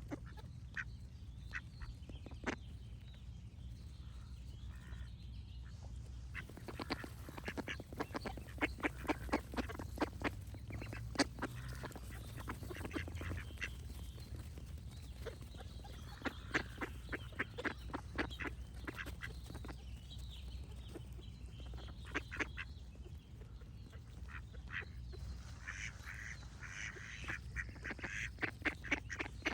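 Ducks quacking in quick runs of short quacks, in several bouts, with birds singing; a denser, higher bird chatter comes in near the end. A steady low hum runs underneath.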